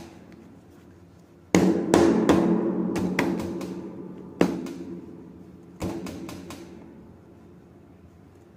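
Percussive music: a loud drum-like hit about a second and a half in, then a run of further sharp hits over the next five seconds, each ringing out slowly over low sustained tones.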